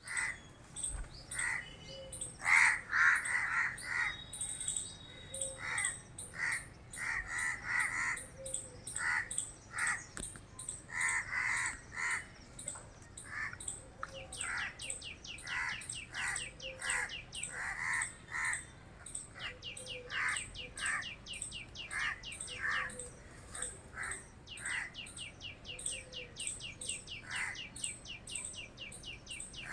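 Several birds calling: short, harsh calls repeated every second or so, steady high chirping over them, and a fast trill of rapid notes that starts about halfway through and comes back near the end.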